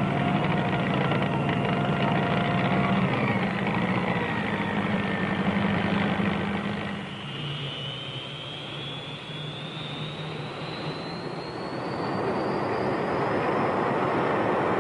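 Aircraft engine noise, typical of jet aircraft: a steady drone, then a high whine that rises slowly in pitch through the second half.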